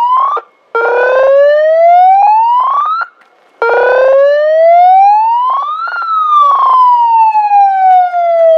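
Siren wailing: two rising wails cut off abruptly about half a second and three seconds in, then a third rises to its peak about six seconds in and slowly winds back down. It is the signal that the airsoft game is over.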